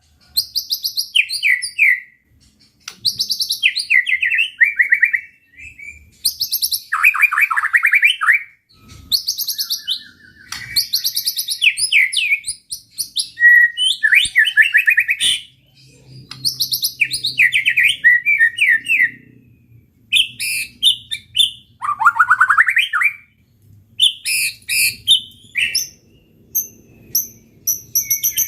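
White-rumped shama (murai batu) singing in full, rapid song: phrase after phrase of fast trills, chattering notes and sweeping whistles, with short pauses between bursts.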